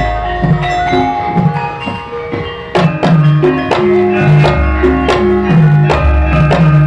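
Javanese gamelan ensemble playing: bronze keyed metallophones ring in a steady repeating pattern over deep gong strokes, growing louder and sharper a little under three seconds in.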